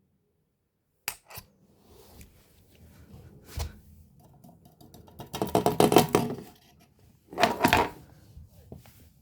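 Small hard objects being handled: two sharp clicks, a knock, then two loud bursts of rapid clinking and clattering.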